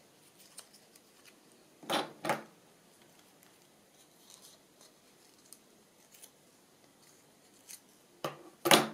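Scissors cutting paper: two quick pairs of snips, about six seconds apart, the second pair louder.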